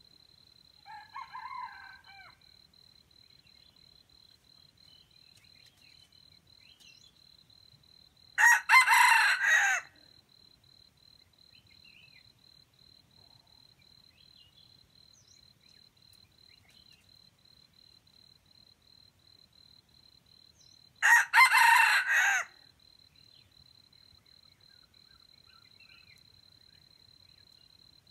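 Junglefowl rooster crowing loudly twice, each crow about a second and a half long and well apart, with a fainter, shorter call about a second in.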